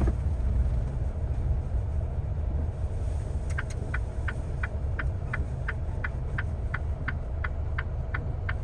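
Car cabin sound: a steady low engine and road rumble, joined about three and a half seconds in by the even ticking of the indicator, about three ticks a second.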